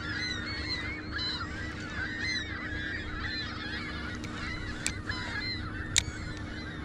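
A flock of birds calling at once, many overlapping calls throughout, with two sharp clicks near the end.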